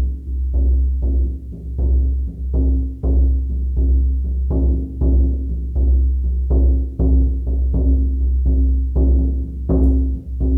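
Shaman frame drum beaten with a steady pulse of about two strikes a second. Each beat gives a deep boom that rings on into the next.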